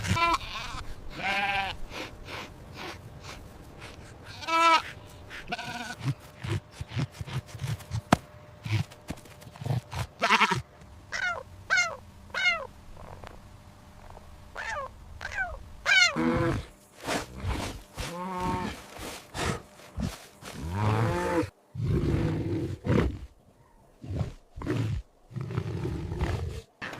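Sheep or goats bleating repeatedly: many separate wavering calls, some coming in quick runs of short bleats, over a low rumble.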